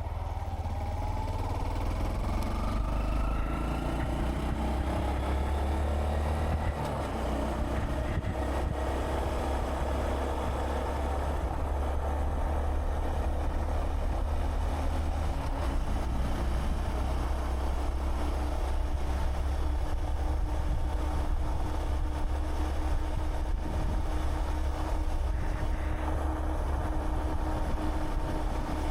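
Honda Monkey 125's single-cylinder engine pulling away, its pitch rising over the first few seconds as the bike speeds up, then running steadily at cruising speed. A constant low wind rumble is on the microphone.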